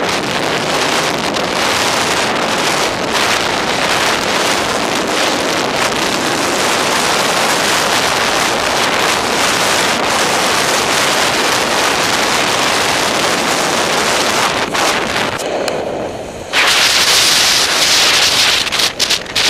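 Wind rushing over the microphone of a skier's camera during a downhill run, mixed with skis hissing and scraping over packed snow. The noise dips briefly about three-quarters of the way through, then comes back louder.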